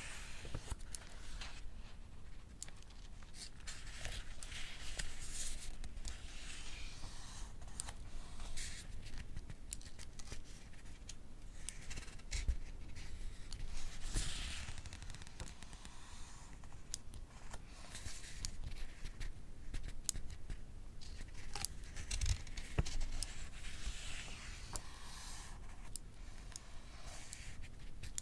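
Pages of a Japanese bunko paperback being turned, each a soft paper rustle several seconds apart. Between them come many small, sharp clicks of a mechanical pencil's button pushing out its lead.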